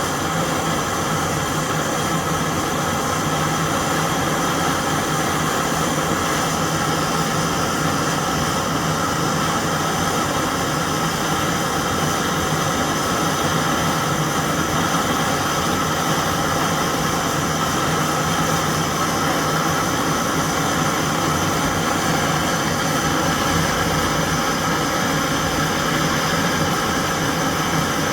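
Handheld gas torch running steadily, its flame hissing without a break as it heats gold in a mold to melt it.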